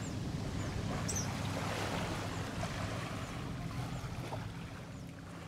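Lake water lapping over a pebbly shore, a steady wash with wind noise and a low hum beneath, and a few short high chirps. It fades down near the end.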